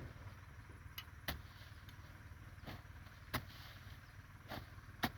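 Irregular sharp knocks, about five of them a second or so apart, over a low steady rumble.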